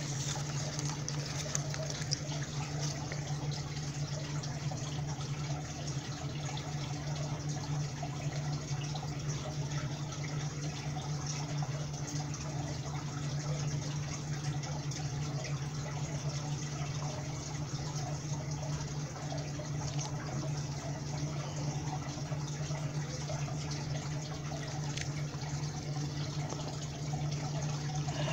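Fire hose spraying water on a burning minivan: a steady hiss over a low, steady hum.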